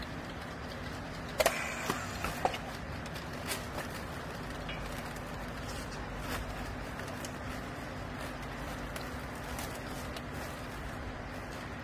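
Steady hum of a hydraulic clothes baler's power unit running, with a few sharp clicks and knocks as the strap and strapping tool are handled, most of them about one and a half to two and a half seconds in.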